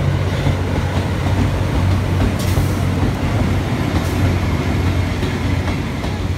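Cassiopeia sleeper coaches rolling slowly past, followed by the EF81 electric locomotive pushing them from the rear, with a steady low hum and wheel noise on the rails. A brief high hiss about two and a half seconds in.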